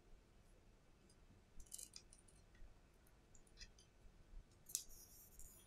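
Faint small clicks and light scratching of fingers and tools handling the opened iPhone 7's parts during its battery replacement, a few scattered ticks, with the loudest click a little before the end followed by brief scratching.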